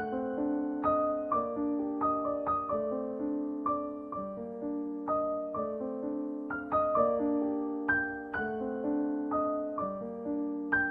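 Background piano music: a gentle melody of notes struck about twice a second, each ringing and fading.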